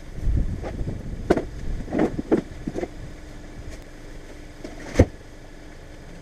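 A few short knocks and clunks of handling, then one sharp bang about five seconds in.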